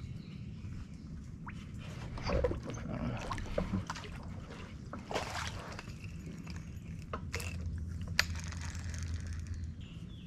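Water splashing and sloshing beside a small fishing boat as a fish is pulled from the water, with a few sharp clicks and knocks in the second half.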